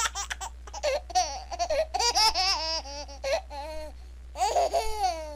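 A domestic cat meowing and yowling in a run of loud, drawn-out cries that rise and fall in pitch, ending in one long falling cry near the end. The cries are mixed with a person laughing, in quick bursts at the start.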